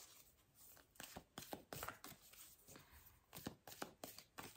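Faint, irregular soft clicks and flicks of a tarot deck being shuffled and handled.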